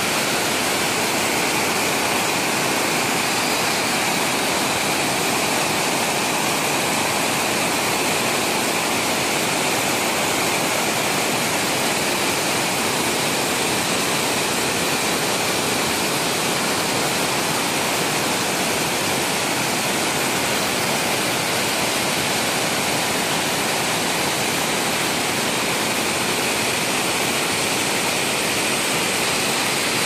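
Waterfall rushing steadily: an even hiss of falling water that never changes in level.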